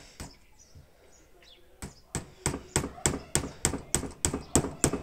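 Hammer tapping small nails into a wooden door: a couple of taps at the start, then, from about two seconds in, a steady run of about a dozen quick blows, roughly three a second.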